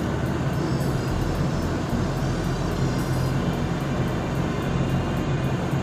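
Steady low drone with a rushing hiss: a bulk carrier's running machinery heard on its open deck.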